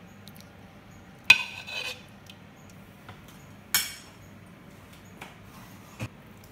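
A metal serving spoon clinking against the cooking pot and a ceramic bowl while curry is served. There are two sharp, loud clinks, about a second in and past halfway, the first ringing briefly with a smaller knock right after it, followed by a few light taps.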